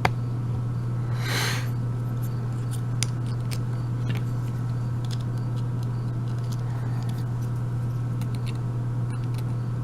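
Scattered light clicks and a scrape of a brass euro cylinder lock and a small clip-removing tool being handled, with a short hiss about a second and a half in, over a steady low hum.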